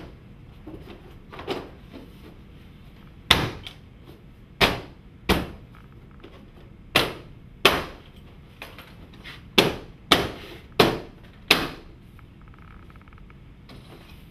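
Hammer blows fastening stone-look cladding panels to a sheathed wall: about ten sharp knocks at uneven intervals, some in quick pairs.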